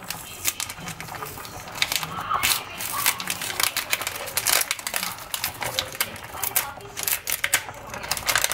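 Paper flour bag being crinkled and opened by hand, with a continuous run of sharp, irregular crackles and rustles.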